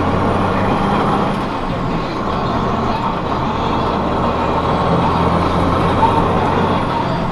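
Truck engine droning steadily with road and tyre noise while cruising at road speed, heard from inside the cab.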